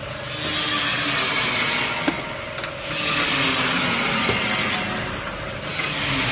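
Biscuit-forming machine with rotating moulding rollers running, a steady mechanical whir and hiss that swells and fades about every three seconds. A couple of faint clicks come through about two and four seconds in.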